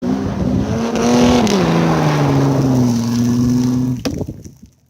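Car engine revving: the pitch rises, drops about one and a half seconds in and then holds steady, before cutting off sharply about four seconds in.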